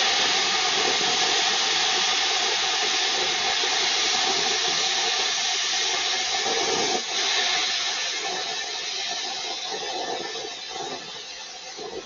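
Plasma cutter cutting steel: a loud, steady hiss of the arc and air jet, with a brief dip about seven seconds in, easing off near the end.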